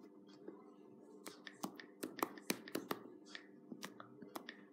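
Typing on an iPad's on-screen keyboard: a quick, irregular run of sharp taps and clicks, over a faint steady hum.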